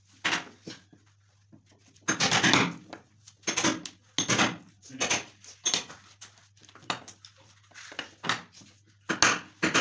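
Hammer blows on a chisel cutting a recess into a wooden board: a series of sharp, irregularly spaced knocks, some in quick clusters.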